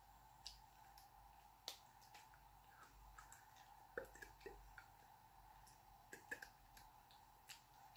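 Near silence: a faint steady hum with scattered soft clicks and rustles from a person's hands and clothing as she signs.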